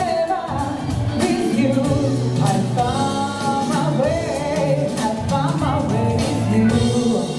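A young woman singing a pop ballad into a handheld microphone over backing music with a beat, holding and bending long notes.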